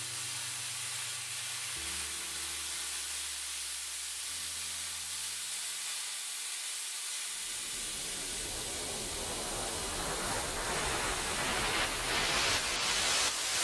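Handheld plasma cutter hissing steadily as its arc cuts through 14-gauge sheet steel, louder in the last few seconds with quick swells in level. Soft sustained music notes sit underneath during the first half and fade out.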